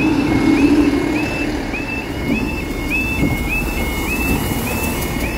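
Level crossing audible warning sounding a rising two-note wail that repeats about every half-second, while a Class 158 diesel multiple unit runs past with a low engine and wheel rumble, strongest in the first second or so.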